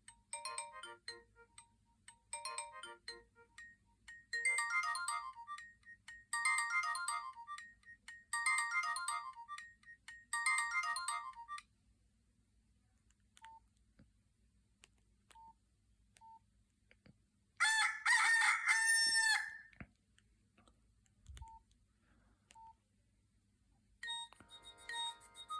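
Preloaded ringtones on a Nokia 6136 mobile phone: a synthesized ringtone repeats a short beeping phrase about every two seconds for the first eleven seconds. After a pause with a few faint clicks, a rooster-crow sound-effect tone plays for about two seconds, and another electronic ringtone starts near the end.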